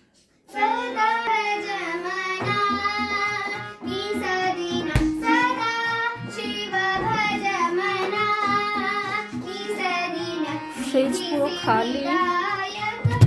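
A girl singing a melodic song with gliding, ornamented notes, practising. It starts suddenly about half a second in.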